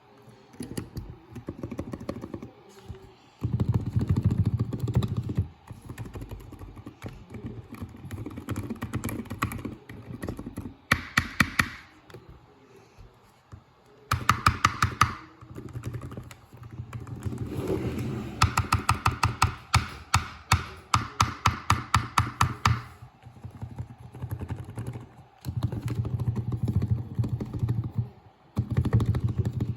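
Lubed Razer Huntsman Mini keyboard with linear red switches being typed on: keystrokes come in bursts, with several fast runs of rapid repeated presses.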